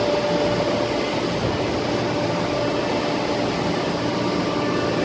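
Baltimore Aircoil Company cooling tower running: a steady rush of machine noise with faint, even hum tones.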